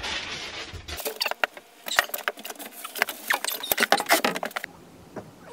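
A scraping slide, then a fast, irregular clatter of clicks and knocks as a large sheet of plywood is handled and shifted, stopping abruptly near the end.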